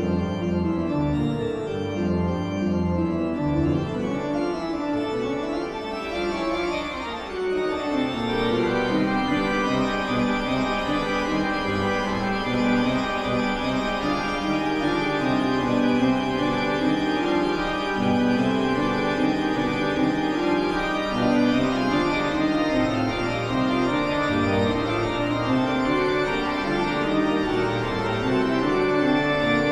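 Eerie horror-style background music with sustained chords; a low line slides downward about four to eight seconds in.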